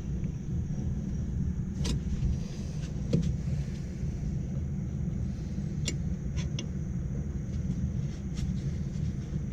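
A steady low rumble of running machinery, with scattered sharp metallic clicks and clinks from hand tools at work on the rooftop unit's blower belt and motor mount.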